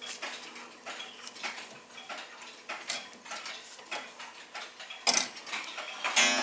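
Ridgeway grandfather clock's German Urgos movement ticking steadily, with a couple of louder clicks about five seconds in.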